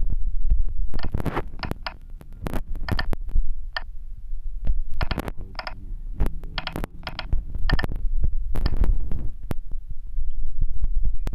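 Short electronic beeps at an irregular typing pace as keys on a CNC simulator's on-screen keypad are tapped to enter G-code, over a steady low hum.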